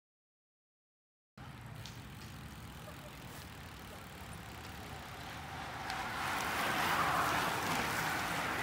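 Silence for about the first second and a half, then a group of road racing bicycles approaching and sweeping past at speed: a rising hiss of tyres and rushing air that is loudest near the end.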